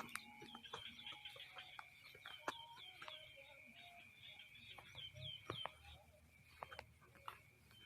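Faint outdoor ambience: birds chirping in short falling calls over a steady high-pitched drone, with scattered small clicks.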